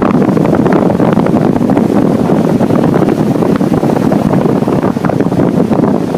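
Strong wind buffeting the microphone: a loud, ragged, gusting rush with no let-up.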